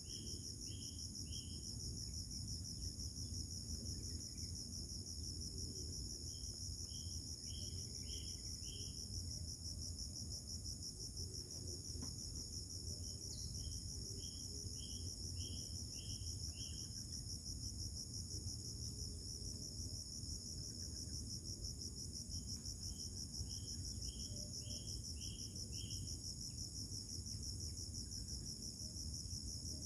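Insects, crickets or similar, chirring steadily in a fast, high, continuous pulse. Four times, a series of about six short, high notes cuts through the chirring, about every seven or eight seconds. A low rumble of background noise sits underneath.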